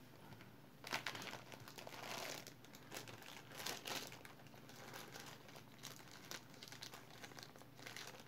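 Irregular crinkling and rustling of something being handled, starting about a second in and coming in short uneven bursts with quieter gaps.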